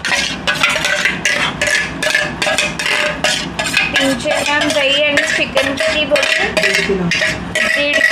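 Steel spoon knocking and scraping against a stainless steel bowl as thick curd is worked out of it into a steel pot: a quick, even run of metallic clinks, about four or five a second.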